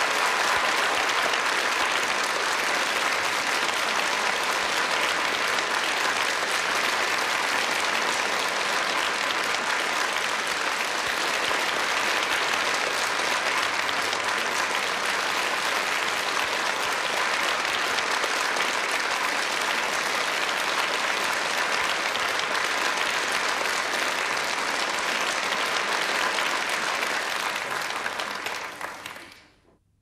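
Studio audience applauding steadily, the clapping fading out near the end.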